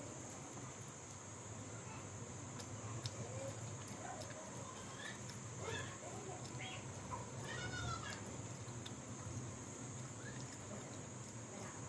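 Close eating sounds: chewing, lip smacking and small clicks of someone eating dal, vegetable curry and roti, over a steady high hiss, with a few faint short gliding calls around the middle.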